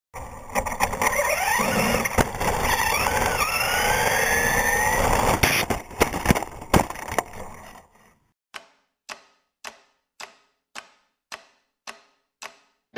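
Electric RC truck running flat out on asphalt: motor whine rising and falling with the throttle over tyre noise, with sharp knocks as the truck bounces and tumbles. It stops about eight seconds in, and a series of about eight evenly spaced ticks, just under two a second, follows.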